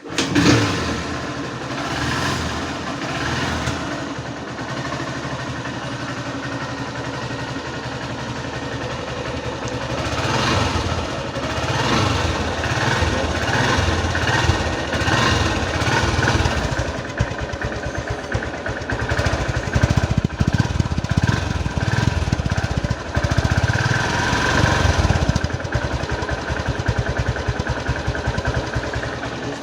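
Honda Unicorn's single-cylinder four-stroke motorcycle engine starting and running, freshly filled with Motul 10W50 fully synthetic oil. It is given a few throttle blips in the second half.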